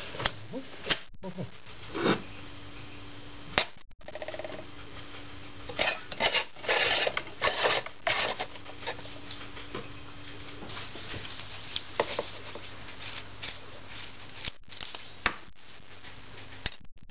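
Clicks, knocks and clatters of a single-serve coffee pad machine being handled: the lid pressed shut, then a ceramic mug set down on the metal drip tray, over a faint steady hum.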